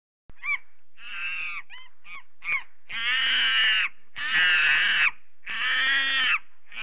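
Monkey calling: a few short high calls, then three long wavering calls of nearly a second each.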